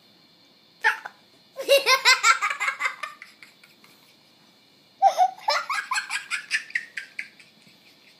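A young child laughing hard in two long bouts of rapid, high-pitched pulses, each falling in pitch and fading out, after a brief high squeal about a second in.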